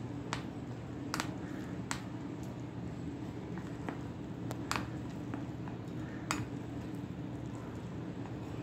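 A spoon stirring water into gram flour (besan) to make a thick batter in a bowl, with a few sharp clicks as the spoon knocks against the bowl's side.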